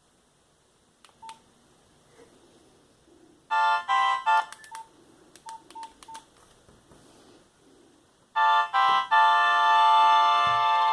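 Nokia 1110i mobile phone playing ringtones through its speaker as they are previewed. A short fragment of a buzzy electronic melody cuts off a few seconds in, followed by three brief keypad beeps, and another ringtone starts playing loudly near the end.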